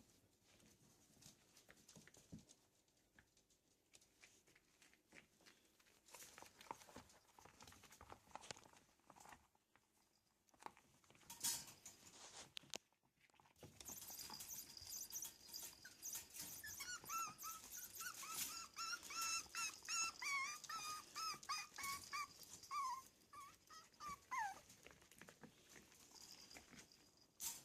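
Yorkshire Terrier puppies playing, with faint scuffling and clicking. In the second half a puppy whimpers in a run of short, high, wavering cries for several seconds, the last one dropping in pitch.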